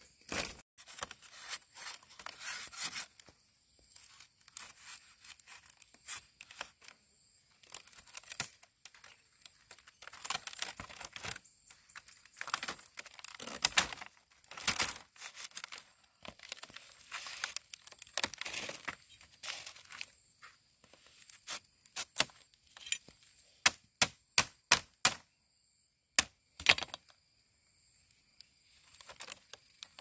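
Bamboo and wood being worked by hand: irregular tearing, cracking and scraping. Near the end comes a quick run of about six sharp knocks, then one more after a short pause.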